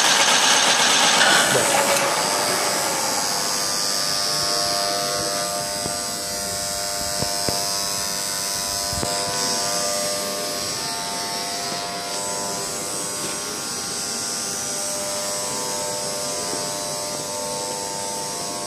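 Huron MU5 knee-type milling machine running: a louder rushing noise eases off about two seconds in, leaving the motor and gearbox running with a steady hum and several steady whining tones.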